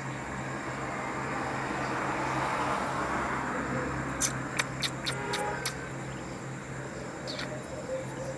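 Budgerigars in their cage: a quick run of about six short, sharp sounds in the middle, over a steady low hum.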